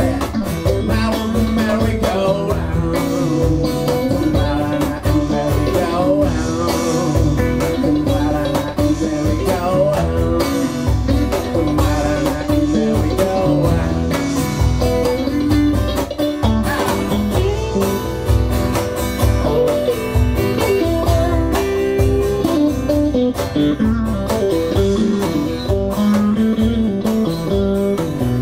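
A small live band playing a song: acoustic guitar, electric guitar and cajon together, with a man singing at the microphone.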